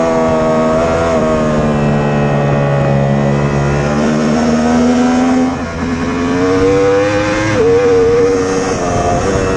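Racing superbike engine, recorded onboard, pulling hard at high revs with its pitch climbing, then an upshift with a short dip in sound about five and a half seconds in before it pulls again. The revs drop back again about two seconds later, all over a steady hiss of wind rush.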